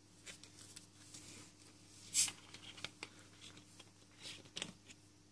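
Faint scattered rustles and light clicks over a low steady hum, the loudest a brief hiss about two seconds in and another cluster of rustles near the end.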